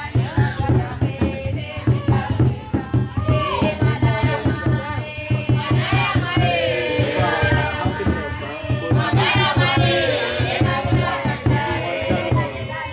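A group of Malawian villagers singing together over fast, steady hand-drumming.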